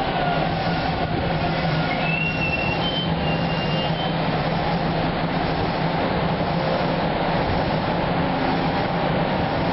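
Toronto subway train of Hawker Siddeley cars rolling slowly alongside the platform: a steady rumble of wheels and traction gear, with a brief high-pitched wheel squeal about two to four seconds in.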